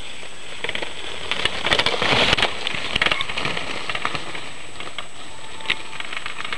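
Mountain bike riding fast down a dirt trail: its tyres crackle over loose dirt, twigs and stones and the bike rattles, loudest about two seconds in as it passes close, then fading as it rides away.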